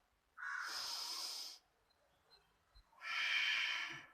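Two deep, audible breaths, each about a second long and about a second and a half apart, taken as part of Viloma Anuloma pranayama yogic breathing.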